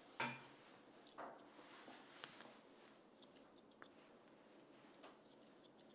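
Grooming scissors trimming the dog's ear hair: a sharp click about a quarter second in, then faint, scattered short snips in small clusters.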